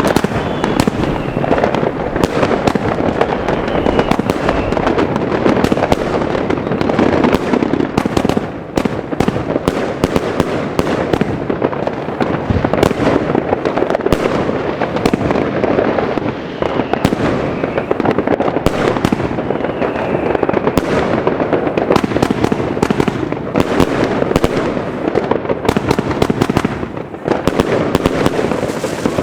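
A 75-shot, 30 mm firework compound cake firing a continuous barrage: dense rapid launches and cracking breaks with no gaps. A few faint rising whistles are heard at the start, about halfway through, and again a little later.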